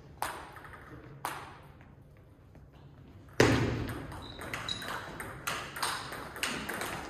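Table tennis ball clicks: two lone bounces about a second apart, then a loud hit about three and a half seconds in and a quick back-and-forth of clicks roughly every half second as a rally goes on, echoing in a large hall.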